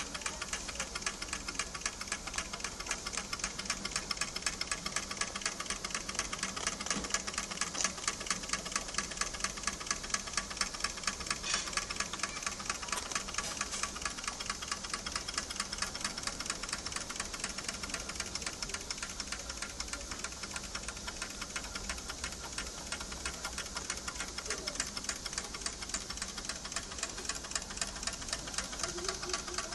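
Wilesco D10 toy steam engine running, its small oscillating cylinder chuffing in a fast, even ticking rhythm.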